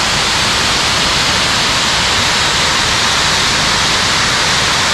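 Kamieńczyk Waterfall in spate after overnight rain: a loud, steady rush of falling water.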